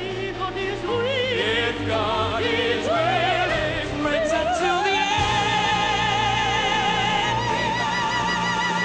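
Operatic singing: a high voice with wide vibrato runs through short phrases over instrumental accompaniment. About four seconds in it climbs into one long high held note.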